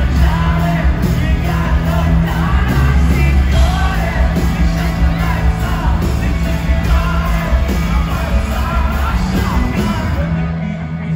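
Live rock band playing loudly, with electric guitar, bass and drums under a lead singer's voice. About ten seconds in, the heavy low end drops away.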